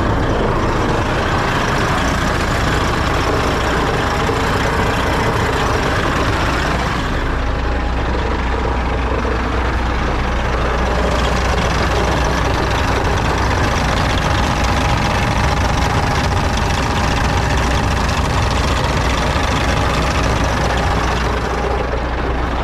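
Detroit diesel engine of a mid-1990s International truck idling steadily, a low, even hum.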